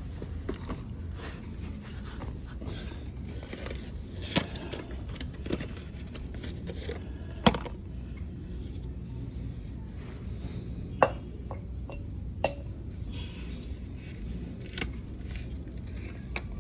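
Scattered clinks, scrapes and a few sharp clicks of tools and parts being handled during work on the oil filter, over a steady low hum.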